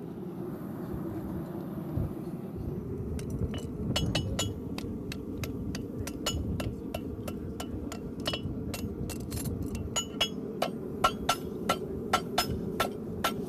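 Farrier's hammer striking a steel horseshoe on an anvil while forging it, starting about three seconds in and going on at about three ringing blows a second, over a steady low noise.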